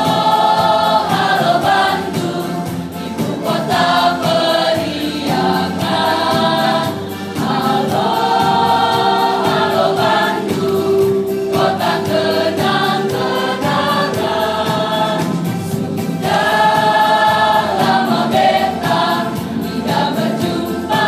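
Large school choir of boys' and girls' voices singing together in sustained phrases, with short breaks between phrases.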